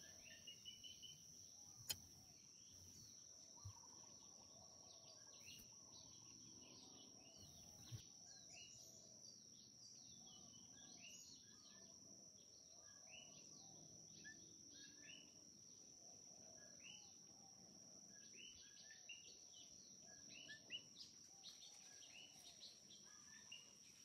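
Faint forest ambience: a steady high insect drone with scattered short bird chirps throughout.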